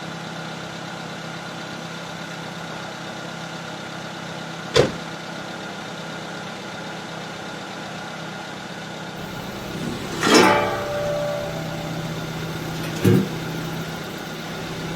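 Car engine idling steadily, with a sharp knock about five seconds in and louder clattering knocks around ten seconds, thirteen seconds and at the end.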